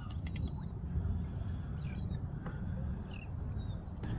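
Steady low rumble of a small boat sitting on open water, with faint, thin, high bird whistles twice, about a second and a half and three seconds in.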